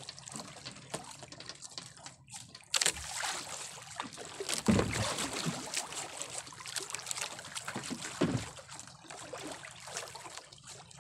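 Sea water lapping and sloshing against the hull of a small boat, with a few louder splashes.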